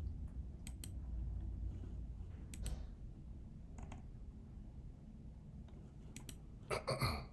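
Sparse, quiet computer mouse clicks, single and in quick pairs, over a low steady hum, with a louder short burst of clicking noise near the end.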